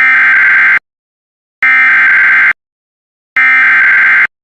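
Emergency Alert System SAME header: three identical bursts of shrill digital data tones, each just under a second long, with about a second between them. The header carries the coded alert, here a severe thunderstorm warning.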